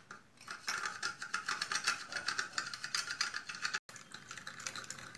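A small wire whisk beating coffee powder and sugar with a little milk into a thick paste in a small cup: rapid, rhythmic clicking and scraping of the wires against the cup. It breaks off briefly near the end, then carries on more softly.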